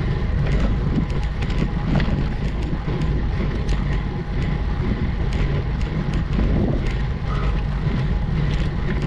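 Wind rumbling on the microphone of a camera on a road bike climbing at low speed, with scattered light clicks and ticks over it.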